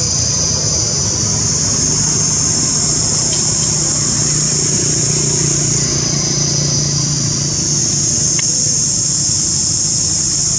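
A dense, steady, high-pitched buzzing chorus of insects, most likely cicadas, that eases for a couple of seconds around the middle and then swells back. Under it runs a low, steady engine drone that fades near the end.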